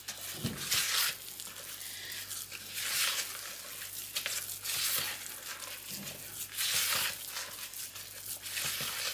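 Silicone spatula stirring thick, gritty brownie batter of melted butter and sugar in a large clear mixing bowl: a run of uneven scraping strokes against the bowl.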